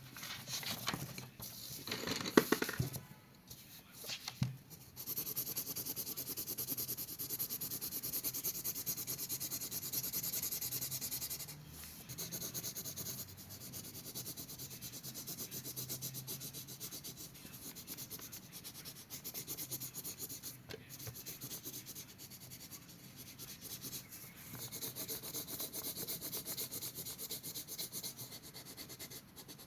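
Colouring on paper with fast back-and-forth strokes, a steady scratchy rubbing, after a few knocks of handling in the first seconds.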